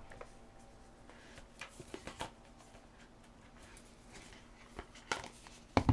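Quiet handling of tarot cards: faint light taps and rustles, with a couple of sharper clicks near the end.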